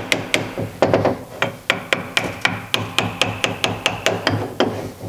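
Small hammer gently tapping the housing of a 1970 Porsche 911E oil pump to separate its sections: a rapid, even run of light strikes, about four a second, with a faint metallic ring between them.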